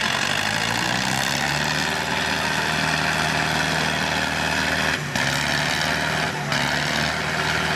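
Diesel engines of two tractors chained back to back in a tug-of-war pull, running steadily under heavy load, with two brief dips about five and six and a half seconds in.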